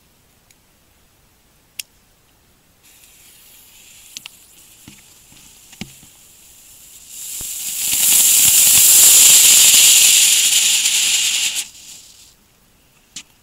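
A batch of Lesli Spinner Pack ground-spinner fireworks burning: a faint hiss starts about three seconds in, swells into a loud, steady hiss for about four seconds, then cuts off. A few sharp clicks come before it.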